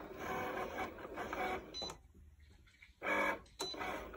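Cricut Explore Air 2 electronic cutting machine cutting cardstock: its motors whir in short runs as the blade carriage moves and the mat feeds. It pauses briefly about two seconds in, then gives a louder whir. This is the normal sound of the machine cutting.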